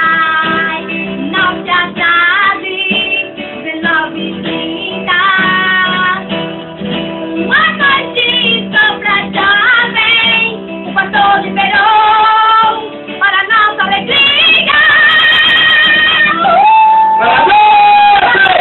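A female voice singing a melody over guitar accompaniment, with long held notes near the end.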